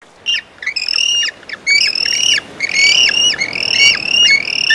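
African penguins calling: a rapid run of harsh, high squawks, several overlapping, each a held note that drops off sharply at its end.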